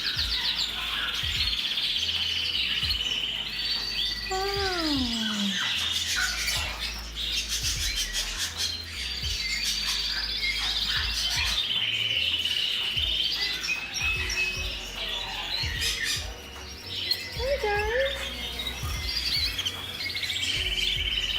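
Many canaries singing together: long, fast trilled and rolling songs that carry on almost without a break. About four seconds in, a lower call slides down in pitch, probably from another bird.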